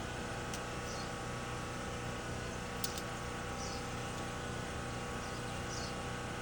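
A few sharp clicks from a hand tool cutting and stripping electrical wire insulation: one about half a second in and a close pair near the middle. Under them runs a steady low hum, with faint short high chirps every second or so.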